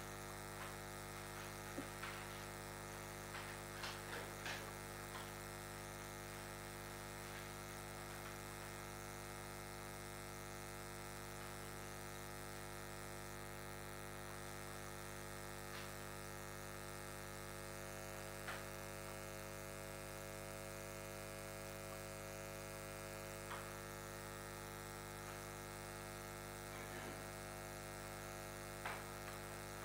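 Steady electrical mains hum picked up by the room's microphone and sound system, a buzz made of many even, unchanging tones. A few faint clicks stand out briefly now and then.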